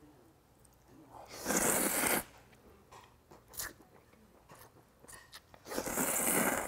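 A person slurping cold buckwheat noodles from a bowl of broth: two long slurps about four seconds apart, with a few small chewing clicks between them.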